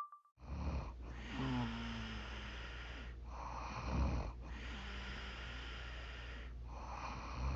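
A woman snoring in her sleep: slow, regular breaths about every three seconds, some carrying a low, pitched snoring rumble.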